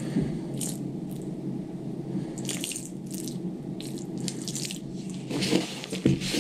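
Water and rubbing-alcohol mix trickling and dripping from a plastic cup into a plastic bowl of black powder composition to moisten it for granulating. Near the end comes a rougher rubbing as a gloved hand works the damp mix.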